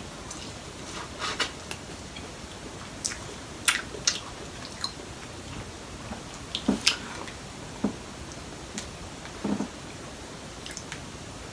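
Close-up mukbang eating sounds from a seafood boil: chewing and wet squishing, with scattered sharp clicks and cracks, over a steady background hiss.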